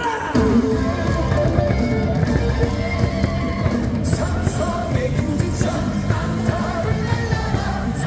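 A batter's cheer song played loudly over the stadium PA, with a heavy beat. It kicks in suddenly just after the start, and the crowd sings and shouts along.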